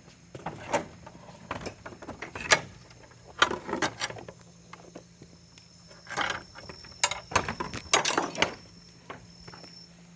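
Goat hooves knocking and clattering in irregular clusters as the goats move about and step into their wooden house, with the loudest knocks about 2.5 s in, 3.5 s in and near 8 s.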